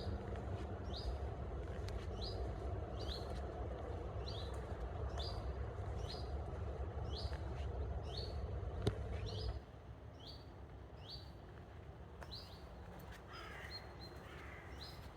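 A forest bird calling over and over, a short high note about once a second, over a low rushing background that drops away abruptly about halfway through. A few other bird chirps come in near the end.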